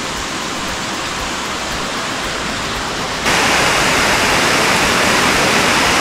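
Rushing water of the Tumpak Sewu waterfall and the stream running down its trail: a steady rush that suddenly turns louder and brighter about three seconds in.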